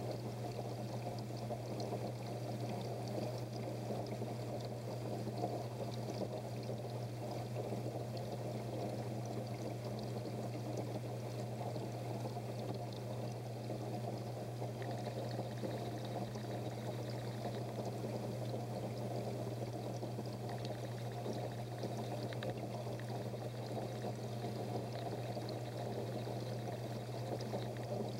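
Steady pouring and splashing of circulating water over a steady low hum.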